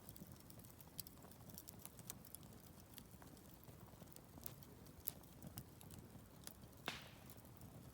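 Wood fire crackling softly, with scattered small ticks and pops and one louder snap near the end.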